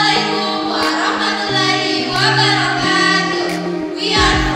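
Female voices singing together over an instrumental backing of sustained chords that change every second or so.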